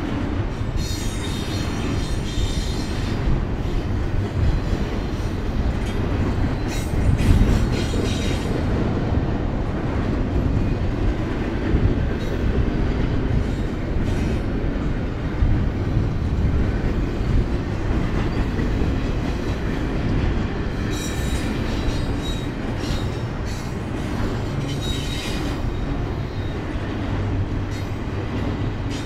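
Double-stack intermodal well cars of a BNSF freight train rolling past, a steady rumble of steel wheels on rail. A high wheel squeal comes in twice: over the first several seconds and again about three-quarters of the way through.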